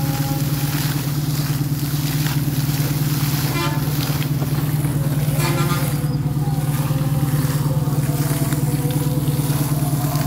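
An air compressor's engine drones steadily while compressed air forces water up and out of a borewell pipe, the water spraying and splashing into a pool. Two brief higher-pitched sounds come about a third and halfway through.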